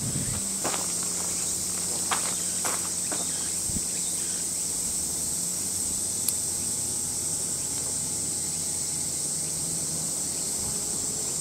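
Steady high-pitched drone of a summer insect chorus in the trees, with a few light scuffs and clicks of footsteps on gravelly ground in the first few seconds.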